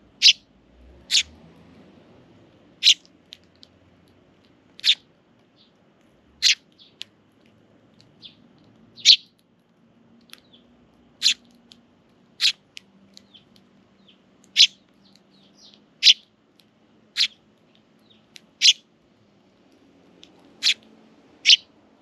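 Eurasian tree sparrows chirping: short, sharp single chirps, one every second or two.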